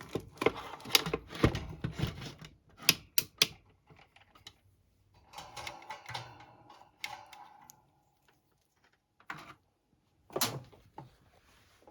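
Handling noise of two vintage table fans being moved and turned over on a surface: a quick run of clicks and knocks, a few seconds of scraping and rubbing, then two separate knocks near the end. The fans are not running.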